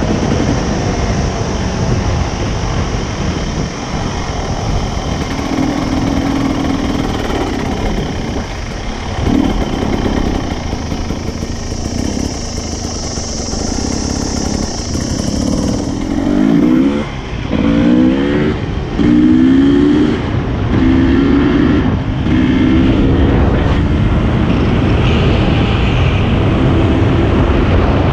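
Dirt bike engine running under way, then accelerating through the gears in the second half: the pitch climbs, drops at each shift and climbs again several times. Wind rushes over the microphone throughout.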